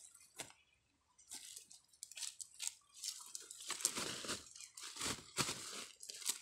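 Crinkling of a woven plastic sack being handled as fish are put into it, followed by louder irregular crunching of dry leaves underfoot from about four seconds in.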